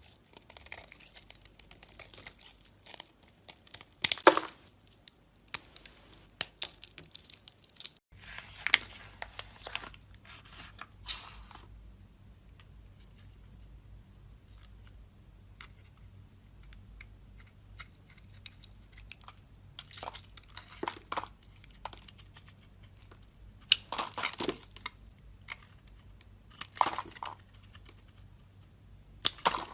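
Knife cutting through soap: crisp crunching and crackling scrapes as the blade slices and the soap crumbles, coming in irregular bursts with a quiet spell of several seconds in the middle.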